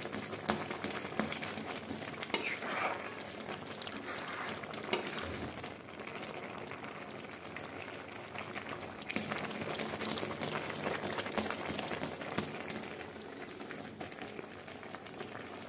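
Thick carrot halwa bubbling hard in a pan on the stove, a dense run of small pops and sputters, with a spatula now and then stirring and scraping through it.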